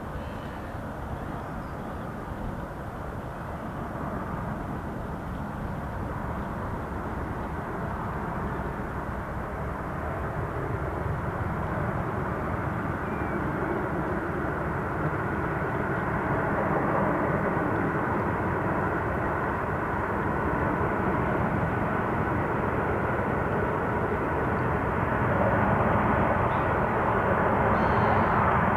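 Double-headed steam train, LNER A1 Pacific 60163 Tornado piloting GWR King class 6024 King Edward I with 14 coaches, running at speed. Its steady rumble grows gradually louder as it approaches.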